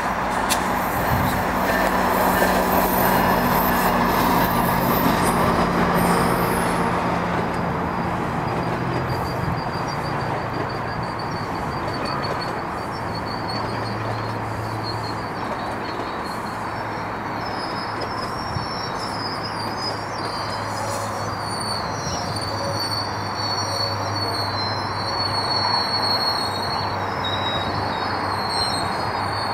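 GO Transit commuter train of bilevel coaches rolling past on the rails, a steady rumble of wheels on track with a low hum underneath. A high, wavering wheel squeal comes in after several seconds and grows stronger toward the end.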